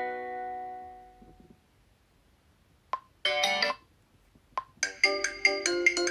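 Ringtone previews on a Xiaomi Redmi 9A phone. One melody rings out and fades over the first second or so. After a short tick comes a half-second snippet of another tone, then a second tick. About five seconds in, a new quick melody of short struck notes begins, about four notes a second.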